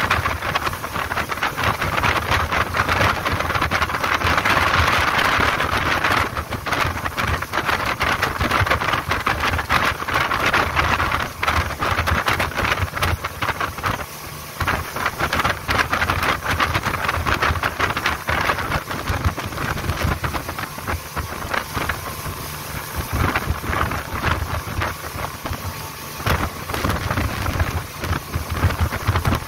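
Speedboat under way: the engine's steady low drone under the loud rush of water and wind against the microphone. The rush is strongest for the first ten seconds or so and eases a little after that.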